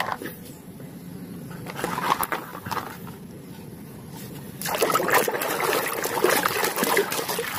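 Water sloshing and splashing in a plastic basin as a hand scrubs a muddy toy fire truck under the water, turning louder and busier about halfway through.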